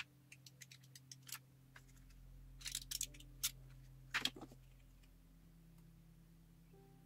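Empty plastic pill blister packs clicking and crackling as they are handled on and lifted off a gel printing plate, with a few quick clusters of sharp clicks. A low steady hum runs underneath.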